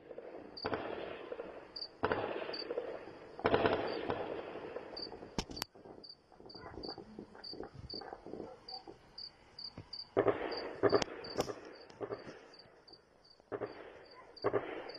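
Gunfire: repeated volleys and single sharp shots, echoing, loudest about four seconds in and again around eleven seconds. Under it a cricket chirps steadily, about three times a second.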